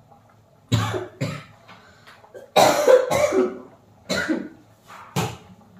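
A woman coughing hard in a fit of about five coughs, the loudest and longest about three seconds in.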